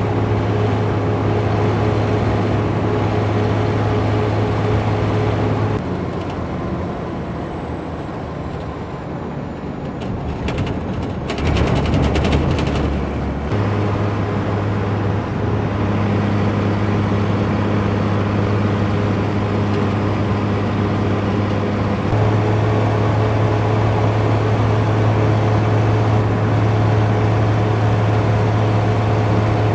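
Bus engine running with road noise, heard from inside the cabin of the moving bus: a steady low drone that drops away about six seconds in and comes back strongly a few seconds later.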